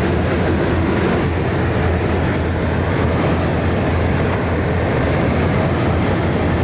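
Kartar combine harvester running steadily under load: a loud, continuous drone from its engine and moving machinery, with a strong low hum.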